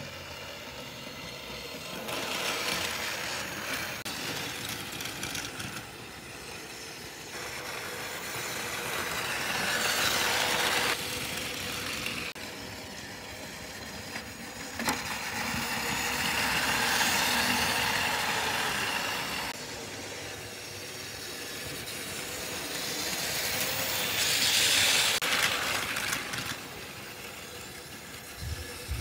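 Battery-powered Plarail toy Shinkansen trains running on plastic track, a whirring of small motors and wheels. It swells about four times as trains pass close by, with a sharp click about halfway through.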